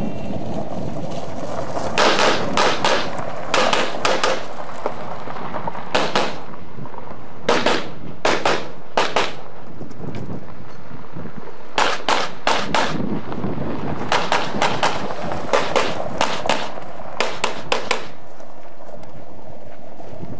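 Pistol gunfire in a practical shooting stage: about thirty sharp shots, mostly in quick pairs and short strings, with pauses of a second or more between strings.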